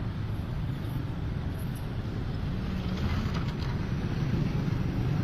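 Low, steady engine rumble of vehicles, slowly growing louder.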